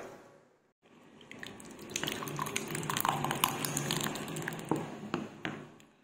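Hot vegetable soup in a pan: many small liquid pops, drips and splashes. They start about a second in, build, and fade near the end.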